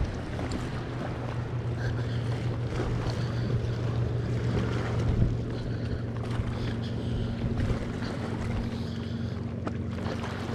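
Boat motor running with a steady hum; its tone shifts about six seconds in.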